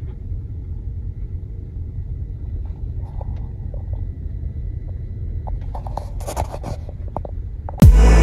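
Low, steady road rumble from inside a Volvo S80 as it drives, with a few short sharp clicks or knocks from the body about five and a half to seven seconds in. Loud electronic music starts near the end.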